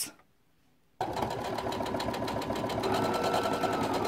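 Baby Lock Soprano sewing machine cutting in sharply about a second in and stitching steadily at a fast, even rate, its motor pitch rising a little about three seconds in as it speeds up.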